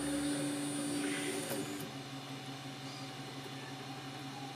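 Stepper motors of a Monoprice Select Mini 3D printer, now driven by a RAMPS 1.4 and Arduino board, moving the axes home: a steady whine that stops about one and a half seconds in, leaving a low steady hum.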